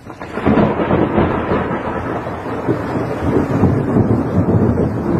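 Thunder following a nearby lightning strike: a loud, uneven rumble that sets in about a third of a second in and rolls on with irregular swells.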